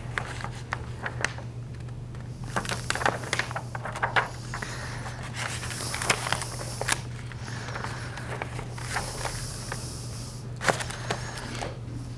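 Scattered light clicks and rustles of handling at a lectern, over a steady low electrical hum.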